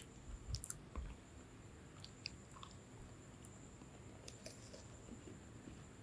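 Close-miked chewing of a lemon cream sandwich biscuit: quiet mouth sounds with scattered small crunchy clicks, busiest in the first second and sparser after.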